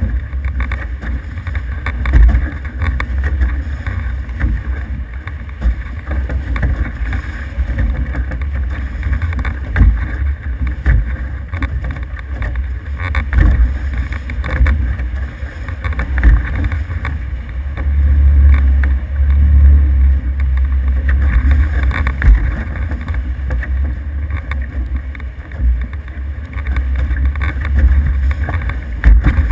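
An F18 catamaran under sail: wind buffeting the microphone over water rushing past the hulls, in gusts that peak a little past the middle.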